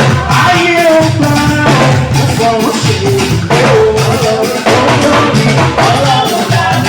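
Live band music with a singer: vocals over a steady beat with drums and percussion.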